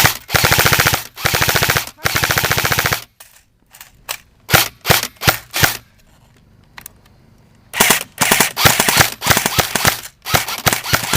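Airsoft M4 electric guns firing: three rapid full-auto bursts back to back in the first three seconds, then a few single shots, and after a short pause a quick, irregular string of shots through the rest.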